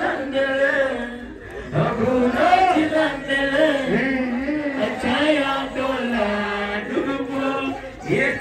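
A voice chanting a melody in long held notes that waver and glide in pitch, with short breaths about a second in and near the end.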